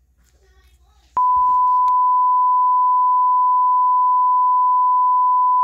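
Colour-bar test tone: one steady, loud, high-pitched pure beep that starts abruptly about a second in and holds unchanged. Before it, only faint handling noise.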